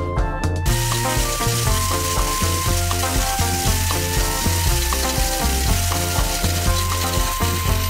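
Background music with a steady beat. From about a second in, a steady hissing rattle comes in under it: the drill-driven homemade corn sheller running, stripping kernels that shower into the bowl.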